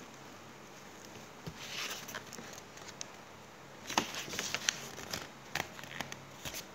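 Hands handling crinkly paper and foil craft decorations on a tabletop: a soft rustle about a second and a half in, then a run of short sharp clicks and taps from about four seconds in.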